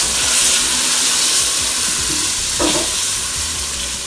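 Ground melon seed paste sizzling steadily in hot oil in a cooking pot as it is stirred with a spoon, with water just added.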